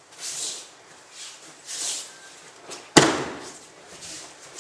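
Aikido breakfall: a sharp, loud slap of a body hitting the tatami about three seconds in, after two short swishes of cloth and feet moving across the mat.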